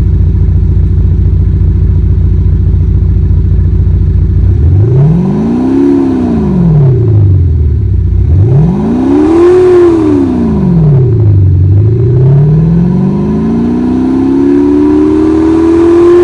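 Car engine note from an active sound module switched on, a V8-style sound. It rumbles steadily at idle for about four seconds, then revs up and back down twice, then climbs slowly and holds at high revs near the end.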